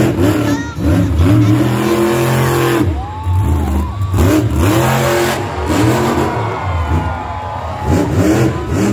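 Monster truck engine revving hard again and again, its pitch rising and falling in repeated sweeps as the truck drives and throttles across the dirt track.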